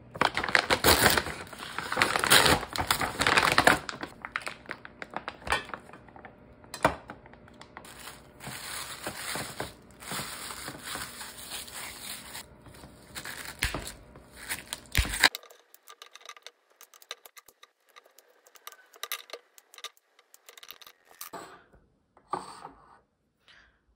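Packaging being torn open and crinkled, loudest in the first few seconds and stopping about fifteen seconds in, followed by a few faint knocks.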